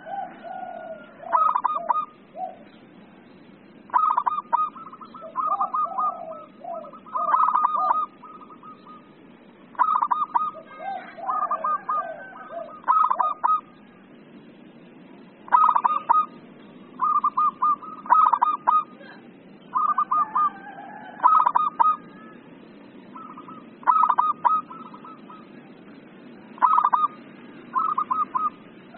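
Zebra dove (perkutut) calling excitedly: repeated phrases of quick staccato coos, a new phrase every few seconds, with lower warbling coos between some of them.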